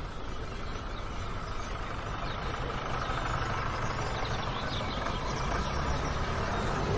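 Minibus engine running steadily as the bus pulls up and idles.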